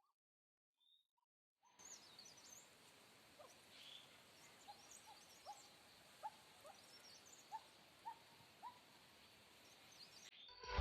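Faint outdoor ambience with birds calling: high twittering and a short, lower call note repeated several times, roughly every half second to second. It cuts in about two seconds in and cuts off abruptly just before the end.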